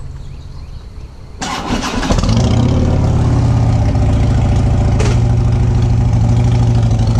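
Harley-Davidson touring motorcycle's V-twin engine cranked by its electric starter about a second and a half in, catching within a second and then idling steadily with an even pulse.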